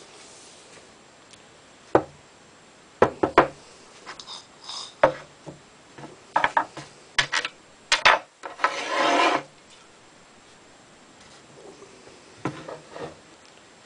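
Steel shotgun action and tools handled on a wooden workbench: a string of sharp knocks and clicks, then about a second of scraping, and a few softer knocks near the end.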